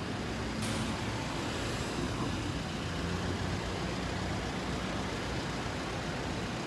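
Steady street traffic noise: car and truck engines running along the road, with wind on the phone's microphone.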